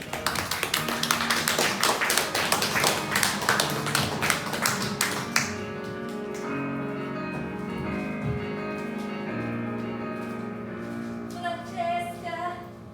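Live instrumental music: a fast run of sharp taps and clicks for about five seconds, then sustained chords held to the end.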